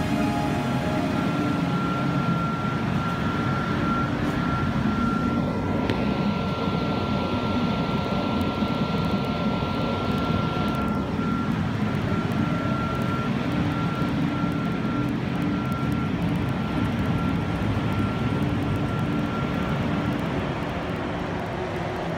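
Textile tearing line and its air-filtration fans running: a steady industrial drone with a thin high whine held over it. The whine stops near the end.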